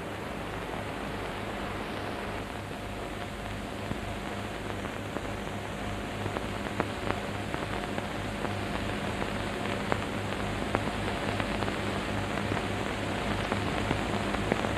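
Steady hiss and low hum of an old film soundtrack, with a few faint clicks scattered through it.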